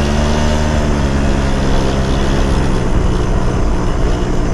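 Yamaha Jog scooter engine of a mini bike running steadily while riding, a continuous engine note with road and wind noise underneath.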